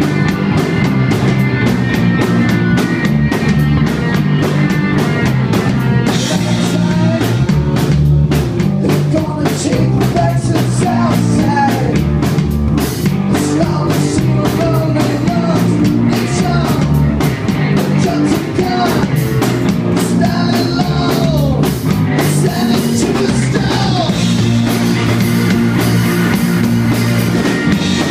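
Rock band playing live: electric guitar, bass guitar and drum kit, with a man singing lead.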